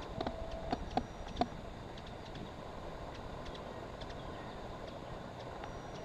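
Steady outdoor background noise, with a few faint clicks and short chirp-like tones in the first second and a half.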